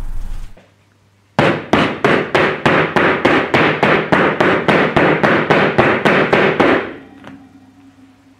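Plastic tub of water-saturated sand shaken rapidly back and forth on a wooden tabletop, knocking about three times a second for some five seconds before stopping. The shaking packs the sand grains together and squeezes the pore water up to the surface, a model of earthquake shaking causing liquefaction.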